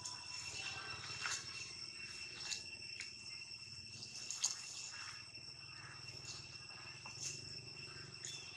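Steady high drone of insects in two even pitches, with a few short sharp ticks scattered through it, the loudest about halfway.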